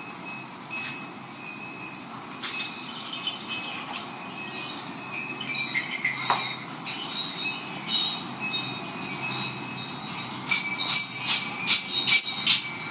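Hand milking of a cow: jets of milk striking a metal pail with ringing, jingling tones. The strikes grow louder near the end, about three a second.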